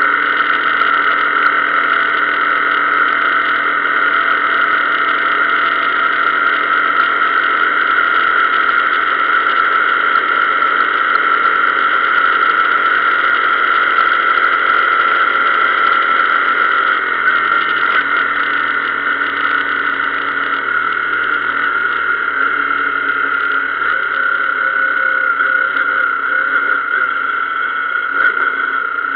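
Motorcycle engine running steadily at road speed, a high even drone. About two-thirds of the way through its pitch drops a little and it runs slightly quieter as the bike eases off.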